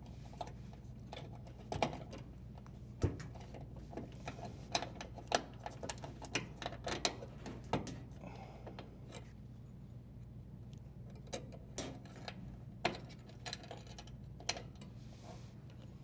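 Irregular small clicks and knocks of a dishwasher's wire-harness strain relief nut being threaded onto the wires at the junction box and tightened, with a few quieter seconds partway through.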